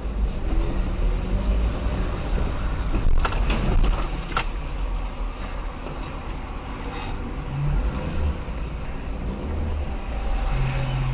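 Car engine and road noise from inside the dashcam car's cabin, a steady low rumble, with a few sharp knocks about three to four and a half seconds in.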